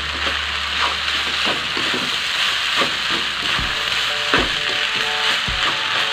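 Fried rice sizzling in a nonstick wok while a spatula stirs and tosses it, with scrapes and light knocks of the spatula against the pan.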